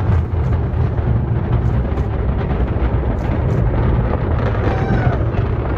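Falcon 9 rocket's nine first-stage Merlin engines heard during ascent: a loud, steady, deep rumble shot through with irregular sharp crackles.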